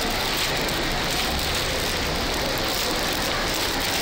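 Steady din of a busy city street, traffic and crowd noise blended into an even roar with no single sound standing out.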